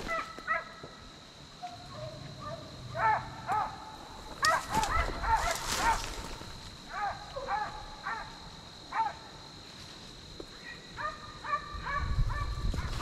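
Deer-hunting hounds barking and baying on the chase, several dogs calling in scattered bouts, with a few longer drawn-out bays near the end.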